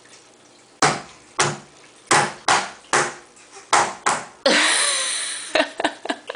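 Baby slapping her palms on a water-covered plastic high-chair tray, about seven separate wet slaps half a second apart. Near the end comes a loud second-long squeal from the baby, then a quick flurry of slaps.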